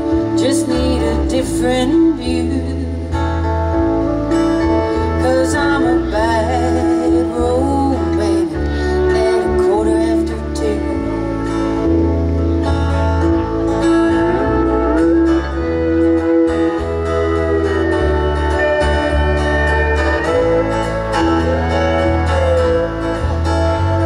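Country band playing live through a PA, an instrumental break: bass and drums keeping a steady beat under acoustic guitar, with a lead instrument playing sliding, bending notes over the top.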